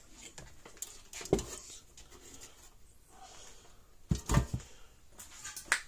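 Scattered knocks and clicks of parts and tools being handled: a single knock, then a cluster of several knocks a few seconds later, and one sharp click near the end.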